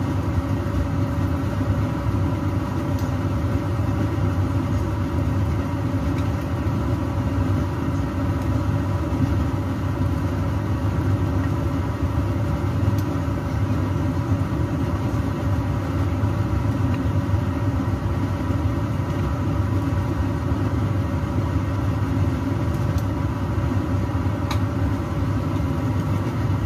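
Steady low kitchen hum, like a running extractor fan, over the frying, with three faint clicks as chopsticks touch the frying pan.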